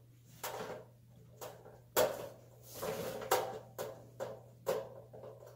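Adjustable wrench clicking and knocking against the fittings and metal housing of a shower panel while working a nut: about seven short, sharp knocks, unevenly spaced.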